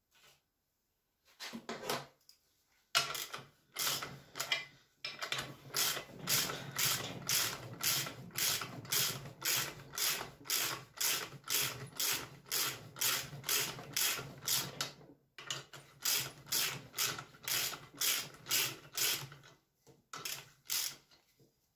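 Valve being lapped into its seat in a Honda K20A2 cylinder head: the lapping stick is twisted back and forth, and the grinding paste gives a gritty rasp about two and a half times a second, with a short break about two-thirds of the way through.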